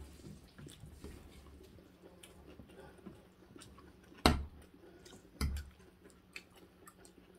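Metal forks and spoons clicking and scraping against ceramic soup bowls, with soft chewing, while noodle soup is eaten. Two louder knocks with a dull thud come about four and five and a half seconds in.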